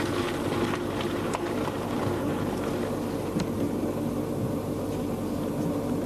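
A vehicle engine running steadily at a constant pitch, with a steady hiss over it.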